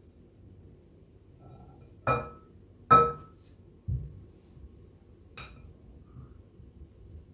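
Glass bowls clinking against each other as flour is poured from one into the other: two sharp clinks with a short ring about two and three seconds in, the second the loudest, then a dull knock as a bowl is set down and a lighter clink of the spatula in the glass bowl a little later.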